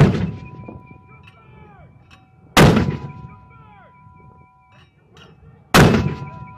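Mortar firing from a light armored vehicle, three rounds about three seconds apart: one right at the start, one about two and a half seconds in and one near the end. Each shot is a sharp blast that dies away over about a second.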